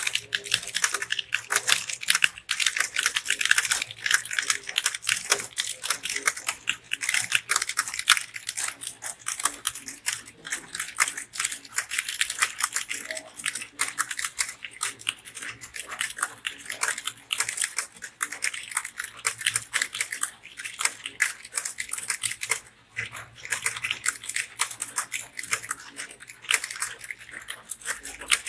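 Fast typing on a computer keyboard: a dense, continuous run of key clicks, with a brief pause about three-quarters through.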